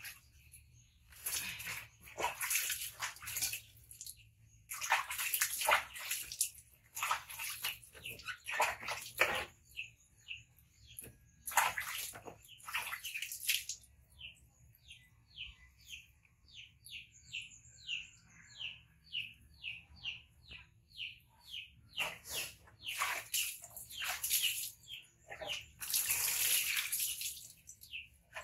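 Water splashing in several bursts of a few seconds each. In the middle comes a regular run of short high chirps, about three a second.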